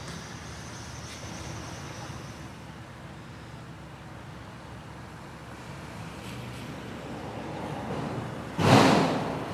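Steady background rush of open river water, then near the end a sudden loud splash of common mergansers thrashing at the surface, dying away over about a second.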